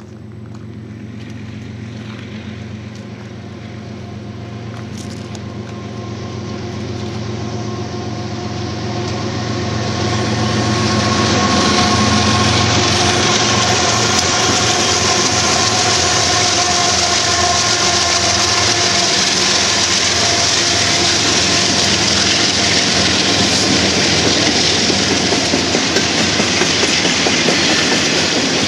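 Diesel locomotives of a BNSF double-stack container train approaching, their engine drone growing louder over the first twelve seconds or so. Then comes the steady rolling noise and clickety-clack of the stack cars passing close by at speed.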